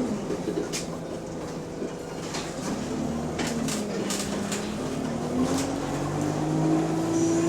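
City bus engine heard on board, dropping to low revs, running low for a few seconds, then climbing again as the bus pulls away, with a few short clicks in between. The bus has an exhaust leak.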